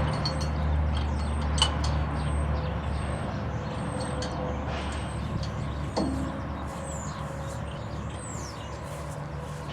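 Mahindra 4035 tractor's diesel engine idling steadily, with a sharp metallic clink about a second and a half in and a knock about six seconds in.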